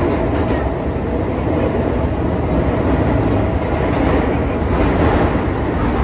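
Toei Shinjuku Line subway train running through a tunnel, heard from inside the car: a loud, steady rumble of wheels on rail and running noise.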